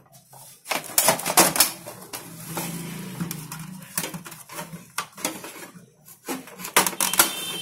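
Hard plastic clicks, knocks and rattles as the side cover of an Epson ink tank printer's casing is unlatched and pulled free, with a cluster of sharper clacks near the end.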